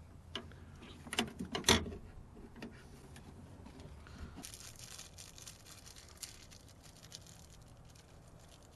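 Hand-handling of the actuator, rod and door parts: a few sharp clicks and knocks in the first two seconds, the loudest near two seconds in, then faint rustling.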